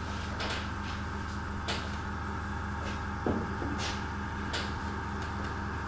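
Airbrush compressor running steadily, a low hum with a regular pulsing, building up air pressure. Four brief sharp noises come over it.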